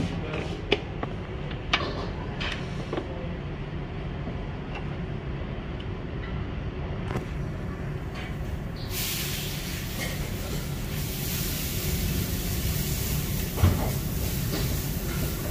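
Metal tongs clicking against steel food trays, then about nine seconds in vegetables start sizzling loudly in a hot wok over a gas burner, with one sharp knock of the ladle against the wok near the end. A steady low rumble runs underneath.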